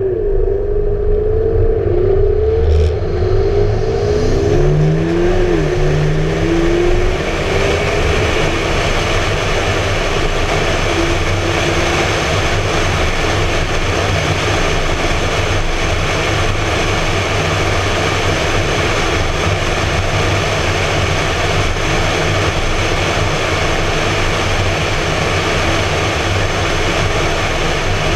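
McLaren MP4-12C Spider's twin-turbo V8 accelerating hard through a few quick upshifts, its pitch climbing and dropping back at each shift over the first several seconds. After that, steady wind and road noise at cruising speed, picked up by a camera mounted outside the open-top car.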